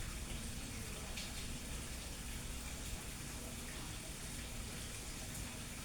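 Steady even hiss with a faint low hum underneath: background room noise.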